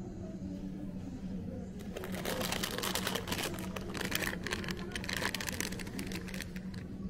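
Thin plastic produce bag of apples crinkling and crackling as it is lifted and turned over in the hands, starting about two seconds in and dying down near the end, over a steady low hum.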